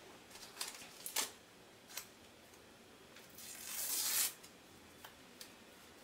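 Blue painter's tape being handled: a few light taps and crackles as strips are pressed onto the puzzle piece, then a ripping sound that swells for about a second, three to four seconds in, and cuts off suddenly as a strip is pulled and torn.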